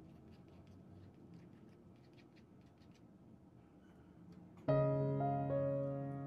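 Faint light ticks at a low level, then about four and a half seconds in, piano music starts abruptly with a held chord that slowly fades.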